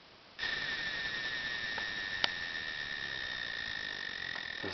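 Gigahertz Solutions HF32D RF analyzer's loudspeaker switching on about half a second in with a steady high whine over hiss. This is its audio rendering of a strong pulsed radio signal picked up as the reading climbs, which the owner takes for pulsed microwave radiation. A single sharp click sounds about two seconds in.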